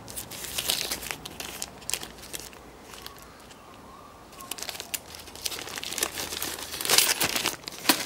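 Thin plastic parts bags crinkling and rustling as a hand handles them and picks through a case of loose typewriter parts. The crinkling eases off around the middle and picks up again for the last few seconds.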